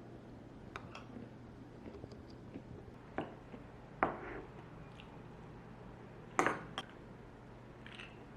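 Dishes and utensils being handled: scattered light clinks and knocks, about five in all, the loudest a little after halfway, over a low steady hum.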